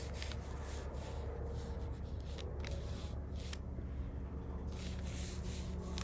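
Soft brushing of a Chinese brush being stroked across sized xuan paper, a faint rustle that comes and goes with each stroke over a steady low hum.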